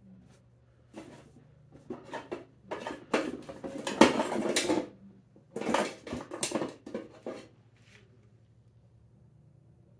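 A hand rummaging in a steel ammo can: items clattering, knocking and scraping against the metal in an irregular run that starts about a second in, is loudest midway and stops a few seconds before the end.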